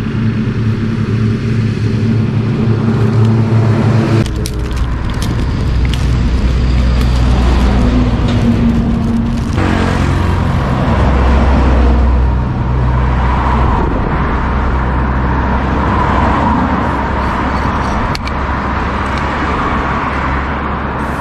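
Motor vehicle engine running close by: a steady hum that gives way to a deeper, noisier rumble about four seconds in.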